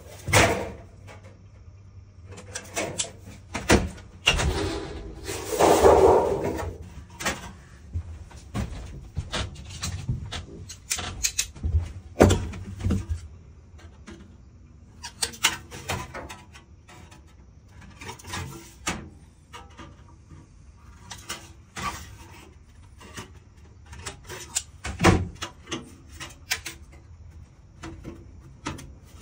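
Thin sheet-metal flashing being cut and bent by hand: irregular clicks and snips from metal snips, with the sheet rattling and flexing. The longest, loudest stretch of rattling comes about five to six seconds in.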